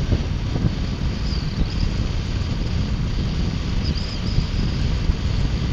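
2018 Triumph Bonneville T120's 1200 cc parallel-twin engine and exhaust running at a steady cruise, a continuous low rumble mixed with wind rushing over the microphone.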